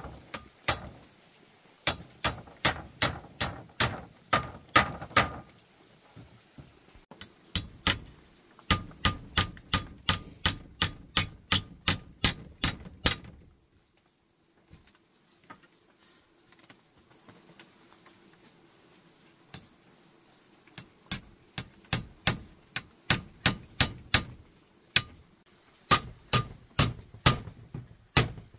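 Hammer driving nails, each strike ringing sharply, in quick runs of about three blows a second with short pauses between the runs.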